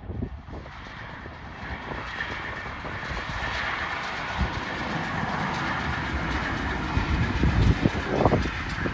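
A1 Pacific steam locomotive 60163 Tornado and its support coach rolling past on the rails, a steady clatter of wheels on track that grows louder over the first few seconds, with a few heavy low thumps near the end.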